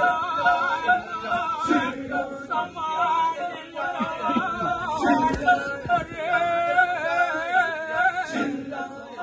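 Balinese Kecak chant: a group of voices singing and chanting with no instruments, a wavering sung melody carried over the chorus.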